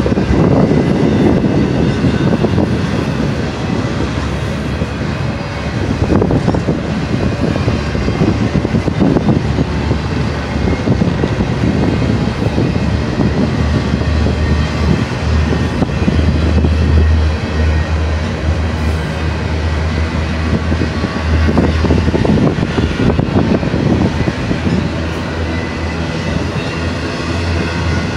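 Double-stack intermodal container train's well cars rolling past close by: a steady rumble of steel wheels on rail.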